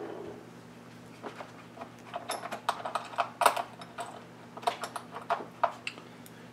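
Small machine screws clicking as they are handled and set down on a workbench: a run of light, irregular clicks over a faint steady low hum.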